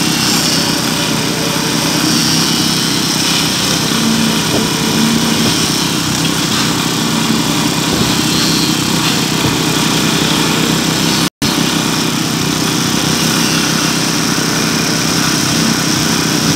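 Small petrol engine of a concrete poker vibrator running steadily at full speed, driving the vibrator's flexible shaft. The sound drops out for an instant about eleven seconds in.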